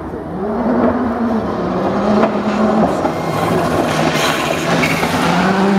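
Rally car engine approaching at speed on a closed stage, getting louder. Its note rises in pitch at the start, then holds fairly steady with small shifts in pitch.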